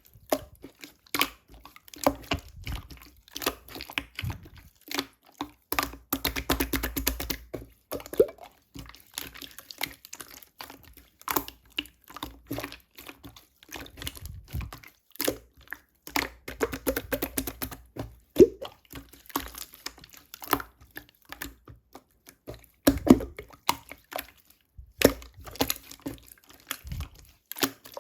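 Clear slime being squished and pressed by hand: irregular wet clicks and small air-bubble pops, with two stretches of fast crackling where it is worked harder.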